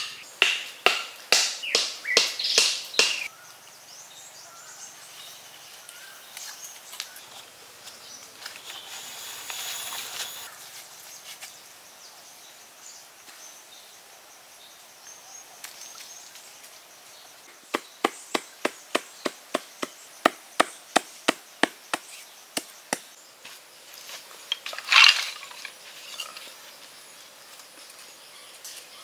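Wooden club knocking wooden stakes into hard dirt: quick runs of sharp wood-on-wood knocks, about three a second, at the start and again in the middle, and one louder knock later on. Faint outdoor ambience fills the pauses.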